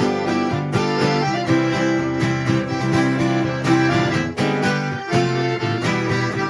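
Instrumental caipira music: viola caipira and acoustic guitar strummed in a steady rhythm, with no singing.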